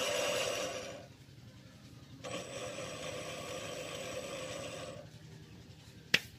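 Benchtop metal lathe running, a steady mechanical hum with a thin high whine. It stops about a second in, starts again about two seconds in and stops again near five seconds. A single sharp click comes near the end.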